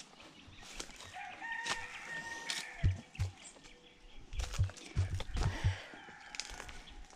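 Uneven thumps and scuffs of footsteps on rock as someone climbs, with a drawn-out bird call held for about a second, starting about a second and a half in.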